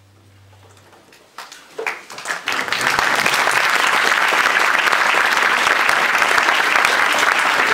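The final low chord of a string orchestra dies away, then a few scattered claps grow into full, steady audience applause from about three seconds in.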